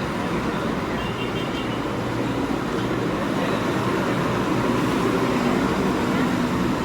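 Steady background noise like road traffic, an even rumble and hiss without distinct events.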